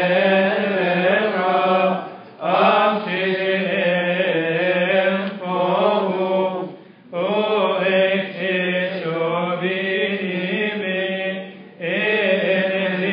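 Coptic Orthodox liturgical chanting: voices singing long, wavering held phrases over a steady low note, pausing briefly for breath three times, about two, seven and twelve seconds in.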